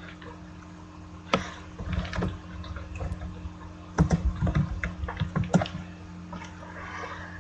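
Computer keyboard typing and mouse clicks: scattered clicks, then a quick run of key taps from about four to nearly six seconds in, over a steady low electrical hum.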